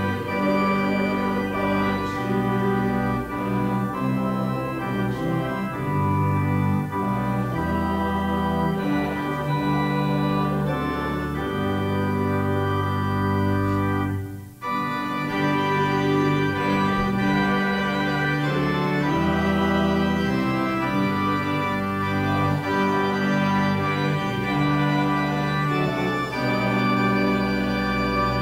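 Organ playing a hymn in held chords, with a brief break between phrases about halfway through.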